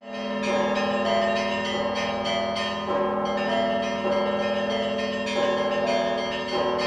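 Church bells ringing a peal: smaller bells struck in quick succession, several strikes a second, over the steady hum of a large bell.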